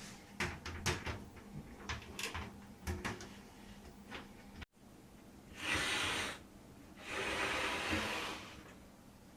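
Sheet-metal side panels of a PC case being handled and fitted: a run of light clicks and knocks. Then two scraping swishes, about a second each, of metal sliding against metal.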